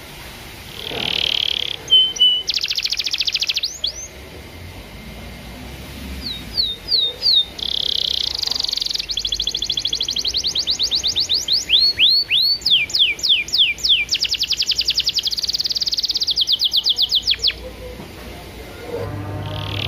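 Domestic canary singing a long, varied song of rapid trills and buzzy rolls, with a run of sharply falling whistled notes a little past the middle.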